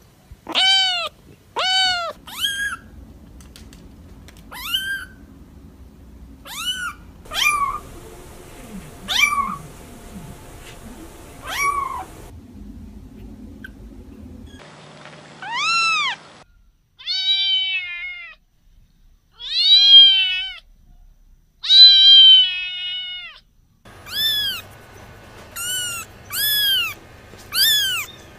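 Kittens mewing: a long run of short, high, arching meows from several different kittens in turn, with a few longer, louder meows in the middle.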